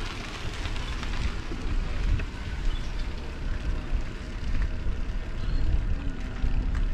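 Wind rumbling on the microphone of a camera carried on a moving bicycle, a steady low buffeting noise.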